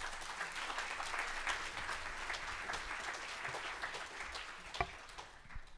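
Audience applauding, a dense patter of many hands clapping that thins out near the end, with one louder sharp hit close by shortly before it stops.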